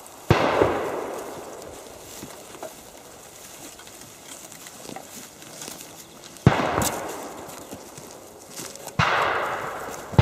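Blank gunshots: single shots about a third of a second in, about six and a half seconds in and about nine seconds in, with another right at the end. Each echoes and dies away over a second or two.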